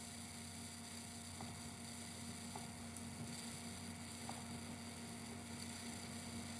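Steady low electrical hum with light hiss, with a few faint short ticks.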